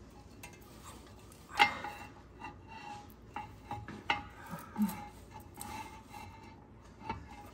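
Steel clutch pressure plate clinking and scraping against the flywheel as it is turned by hand to line its holes up with the locating pins. One sharp metal clink about a second and a half in is the loudest, with lighter knocks and brief ringing after it.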